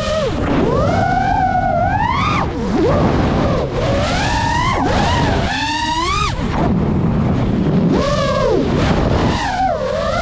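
FPV racing drone's brushless motors and propellers whining, the pitch rising and falling with the throttle: climbing about a second and a half in, dropping sharply just after two seconds, climbing again to a peak around six seconds, then dipping low before rising once more near the end. A rushing noise of wind and propeller wash runs underneath.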